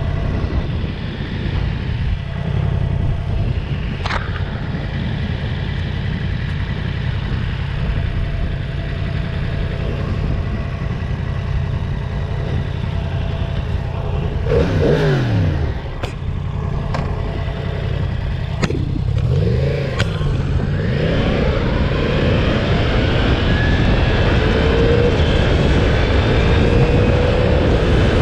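Yamaha MT-10's crossplane inline-four engine on its stock exhaust, running on the move. The engine note drops sharply about halfway through, then climbs in pitch again and again through the last third as the bike accelerates.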